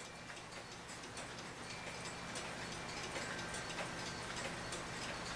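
Faint, regular tick-tock of a 1900s New Haven Clock Co. mantel clock's pendulum movement, running in beat.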